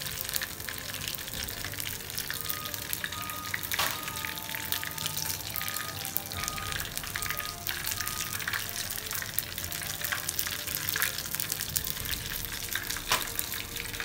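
Batter-coated squid rings deep-frying in hot oil in a small pan: a steady sizzle and crackle, with a couple of sharp clicks, about 4 and 13 seconds in.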